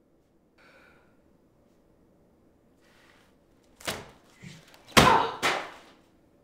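A spiral notebook smacked shut, then two loud thuds about half a second apart as it is slammed down and thrown aside.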